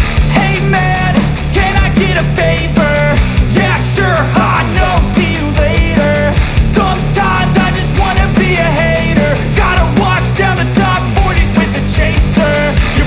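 Loud rock background music with a fast drum beat and distorted guitars.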